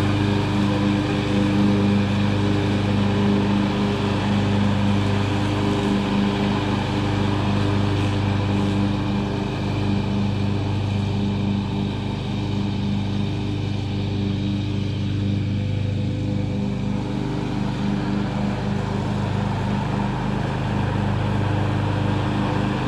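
John Deere X540 riding mower's V-twin engine running steadily while mowing, a constant even hum with its cutting deck engaged.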